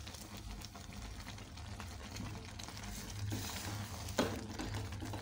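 Wooden spoon stirring thickening ugali (maize flour in boiling water) in a steel pot, with soft scraping and a knock about four seconds in, over a steady low hum.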